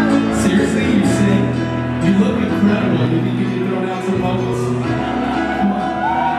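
Pop-rock band playing live: drums, bass and guitar chords under a male lead singer, heard from among the audience.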